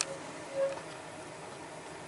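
A sharp click, then about half a second later a brief low tone, over a steady low background hum.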